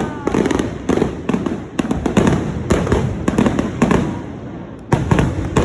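Fireworks going off in quick succession, a dense string of sharp bangs that thins out about four seconds in, followed by a couple more bangs near the end.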